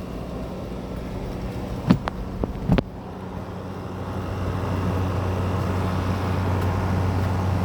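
GE 6,000 BTU wall air conditioner running, a steady compressor hum under the rush of its fan, growing a little louder about halfway through. A few sharp clicks of handling come around two to three seconds in. The compressor is running with its accumulator frozen.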